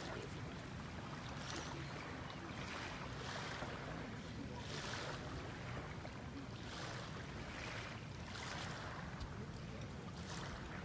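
Wind on the microphone with small lagoon waves lapping, a soft rush of water coming roughly once a second over a steady low rumble.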